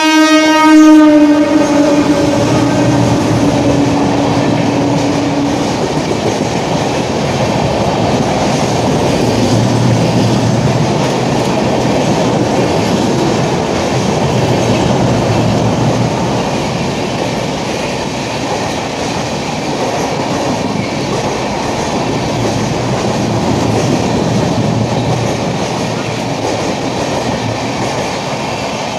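Electric locomotive of an express train sounding a long horn blast as it runs through a station at speed; the horn fades out over the first few seconds. The rush and rattle of the passing coaches follows, swelling and easing in waves.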